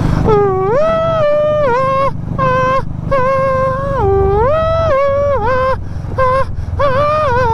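A man singing a tune in long held notes that slide up and down, with short breaks between phrases. The steady low running of a motorcycle engine carries on underneath.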